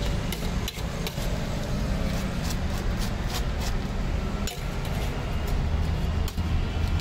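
Street ambience: a steady low traffic rumble with frequent light clinks and taps of metal utensils and dishes.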